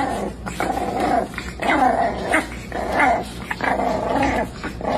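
A dog growling in a string of short growls, about two a second, each bending up or down in pitch.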